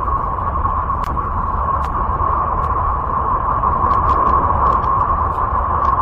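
Sonified space recording presented as the sound of Uranus, electromagnetic emissions converted to audio. It is a steady, eerie hissing drone centred on one mid pitch over a low rumble, with a few faint clicks scattered through it.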